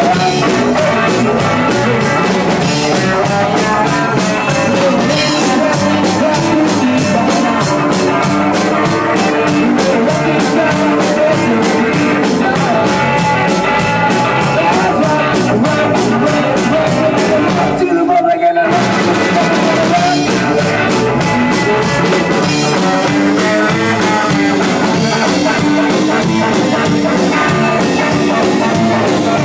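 Live rockabilly band playing loud in a small room: electric guitars over a drum kit with cymbals, the full band dropping out for a brief stop about two-thirds of the way through before coming straight back in.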